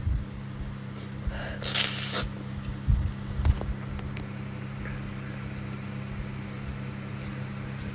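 A woman's single short sneeze about two seconds in, followed by a few low thumps a second later, over a steady low hum.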